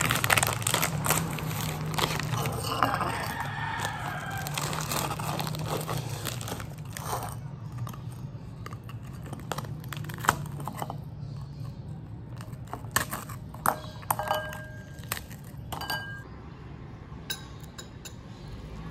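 Plastic snack wrapper crinkling as hands tear the packet open, then crisp toasted bread crackling as it is broken into small pieces, in scattered clicks.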